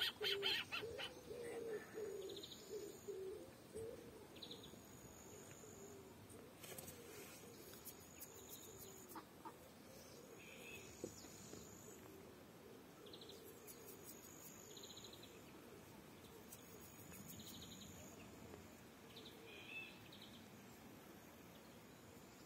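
Faint outdoor ambience of distant bird calls: low, wavering calls in the first few seconds, then short, high chirps every second or two.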